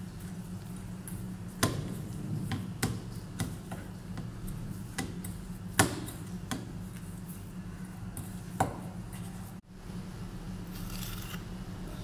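Hands kneading a sticky lemon and powdered-sugar dough in a stainless steel bowl, with scattered sharp clicks and knocks against the metal, the loudest about halfway through, over a steady low hum.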